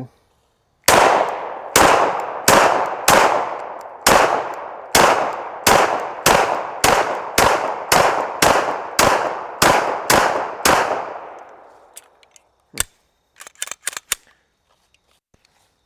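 Walther Creed 9mm pistol firing a string of about sixteen shots at a steady pace, roughly one every half-second to second, each shot ringing on briefly. A few light clicks follow after the firing stops.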